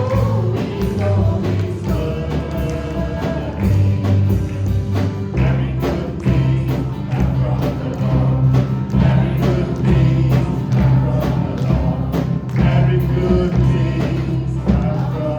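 Worship band music played loud: steady drum hits over sustained bass notes, with group voices singing, clearest near the end.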